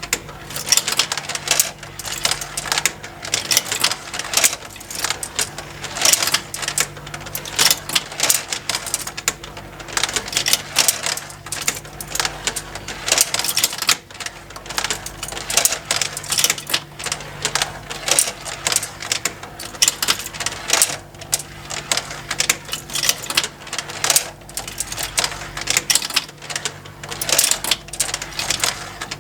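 Plastic marble run toy with motorised conveyors: marbles clicking and rattling continuously against plastic tracks and lifts, over the faint steady hum of the small drive motor.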